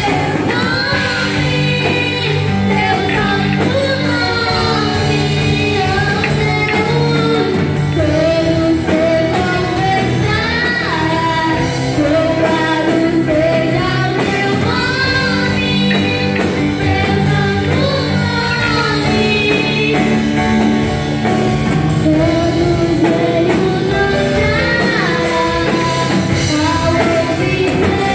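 A small group of children and a woman singing a gospel worship song together into microphones, amplified over a PA, over sustained electronic keyboard chords.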